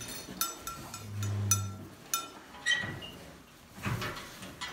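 Sharp metallic clinks, about five in the first two seconds, each ringing briefly, like steel gate or pen hardware being handled. A short low hum comes about a second in, and a couple of duller knocks follow near the end.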